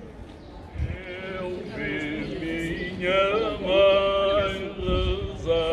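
Unaccompanied male choir singing cante alentejano, the traditional Alentejo polyphonic song. After a brief pause a single voice leads a new phrase, and the fuller group of voices comes in about three seconds in.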